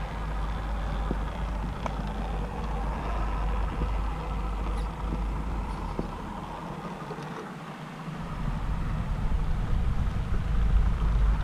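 Low wind rumble on the microphone that dips about seven seconds in and comes back louder. Under it, the Axial UMG10 rock crawler's Hobbywing AXE brushless motor and drivetrain whine faintly as it crawls up rock, with small clicks of the tyres on stone.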